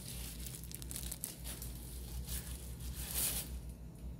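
Thin disposable plastic glove crinkling and rustling as it is handled, in irregular crackles with a louder rustle a little after three seconds.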